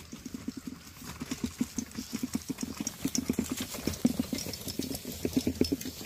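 Collapsible wagon loaded with a cooler being pulled over bumpy grass: its wheels and frame clatter in quick, uneven knocks. The rattling grows louder and is loudest about four seconds in as the wagon passes close.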